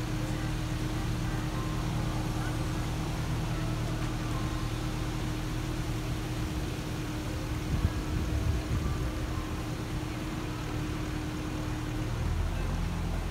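Steady low engine hum with a held higher tone that stops about twelve seconds in.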